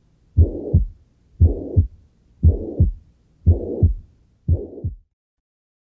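Heart sounds with the holosystolic murmur of mitral regurgitation: a blowing murmur fills the whole gap between the first and second heart sounds, the sign of blood leaking back through an incompetent mitral valve during systole. It beats about once a second, five beats, and stops about five seconds in.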